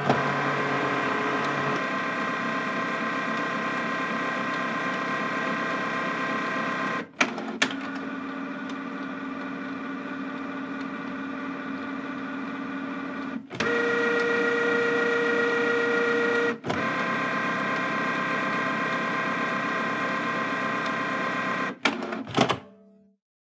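An office machine running with a steady electric hum made of several fixed tones. It changes abruptly to a different steady hum four times, each change marked by a short click, then cuts out near the end.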